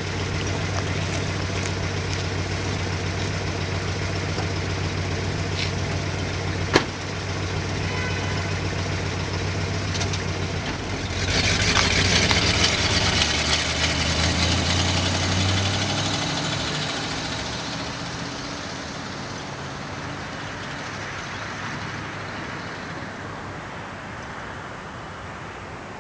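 1987 Chrysler Fifth Avenue's 318 V8 idling with a loud, rough exhaust leak at the driver's-side Y-pipe, damaged by hitting a curb, with a single sharp knock about seven seconds in. About eleven seconds in the engine gets louder as the car pulls away, then fades steadily.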